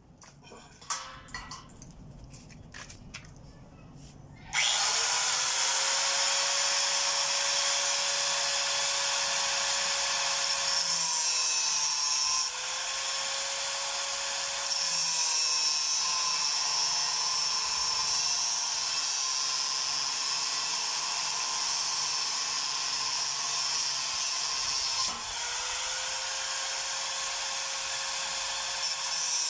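A few light handling clicks, then about four and a half seconds in a handheld angle grinder starts and grinds against the steel bars of a welded grille. Its whine holds steady and sags briefly a few times as it is pressed into the metal.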